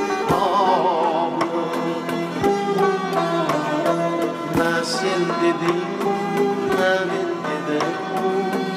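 Instrumental passage of an Uzbek song: pitched melodic lines over repeated drum strokes.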